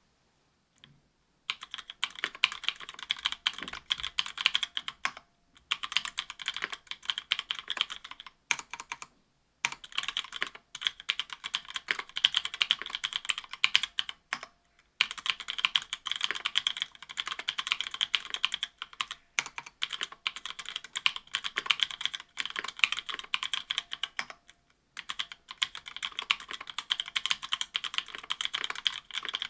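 Typing on an Octagon V3 mechanical keyboard with stock Kailh Pro Burgundy 70 g linear switches, aluminium plate and GMK keycaps. Fast keystrokes start about a second and a half in and run in long bursts, broken by a few short pauses.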